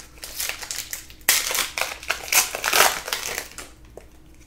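Crinkling and crushing of a plastic trading-card pack wrapper being handled and torn open. It is faint at first, loud and crackling from about a second in, and dies away near the end.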